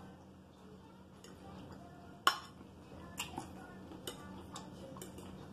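Metal fork clinking and scraping against a ceramic salad bowl while picking up salad: several sharp clinks, the loudest about two seconds in, then a few lighter taps.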